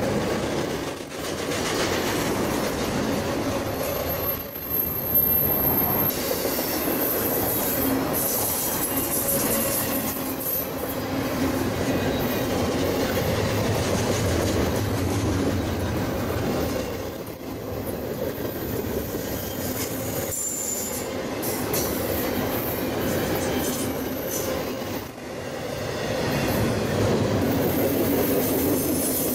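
Double-stack intermodal freight train rolling past: the steady rumble and rattle of the well cars' wheels on the rail, with brief high wheel squeals, the first about four seconds in.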